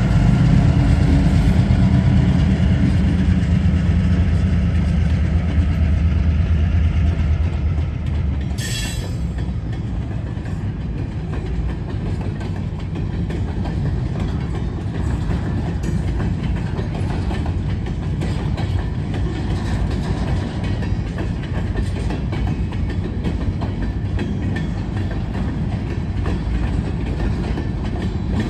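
Diesel freight locomotive passing close by with its engine running, the low rumble dropping away about eight seconds in. A brief high-pitched noise follows, then freight cars, centerbeam flatcars among them, rolling past with a steady clickety-clack of wheels over the rails.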